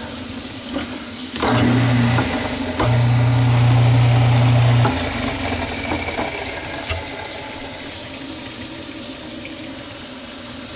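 Water running down a kitchen sink drain while the garbage disposal hums, switched on twice: briefly about a second and a half in, then for about two seconds. This is a flow test of the newly rebuilt PVC drain and trap, done while checking for leaks.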